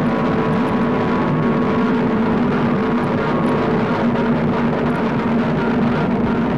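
Experimental psychedelic recording: a dense, steady drone of several held tones under a thick wash of noise, with no beat.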